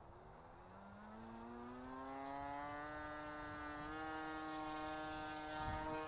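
Electric motor and pusher propeller of a small RC model plane whining, the pitch climbing over the first few seconds and then holding steady, growing louder to a peak near the end as the plane passes low and close. Wind buffets the microphone underneath.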